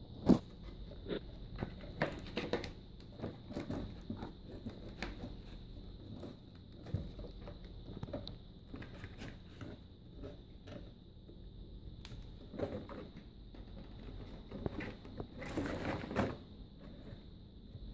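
Dry twigs rattling and clicking against each other and the cardboard box as a cat rummages through them, in scattered light knocks and rustles. The sharpest knock comes just after the start, and there is a denser burst of rustling near the end.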